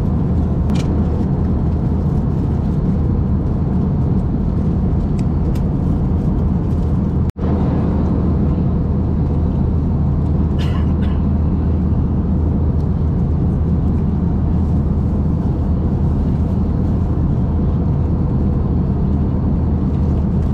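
Steady cabin noise of an Airbus A321-200 airliner in flight: the constant low roar of engines and airflow. It cuts out for an instant about seven seconds in.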